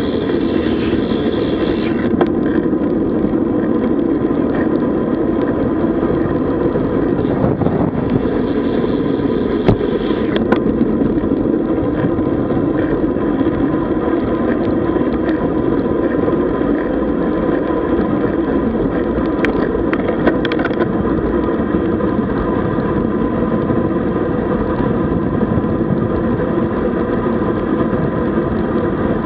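Steady rushing wind on the microphone and tyre and road noise from a road bike riding along, with a few brief clicks.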